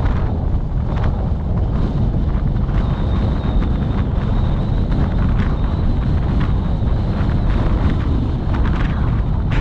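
Wind buffeting the microphone over the steady low rumble of a moving vehicle on the road.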